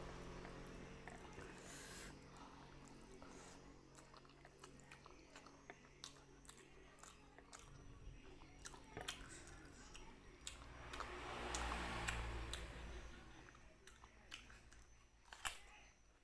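Close-miked chewing of chewy, spicy kikil (beef skin), with many small wet mouth clicks. A louder swell of noise comes about eleven seconds in, and a single sharp click near the end.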